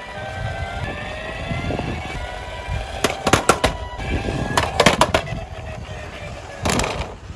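Toy minicars running with siren tones sounding over a low rolling rumble, broken by several sharp clacks: a quick cluster about three seconds in, another nearly five seconds in, and one more near the end.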